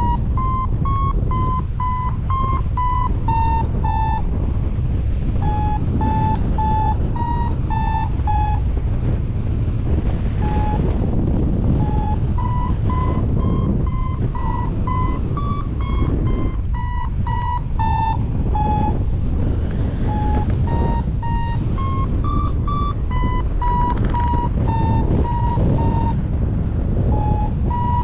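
Paragliding variometer beeping in short tones, about two or three a second, its pitch stepping up and down as it signals lift, with the beeps thinning out for a few seconds in the middle. Heavy strong-wind rush on the microphone runs underneath.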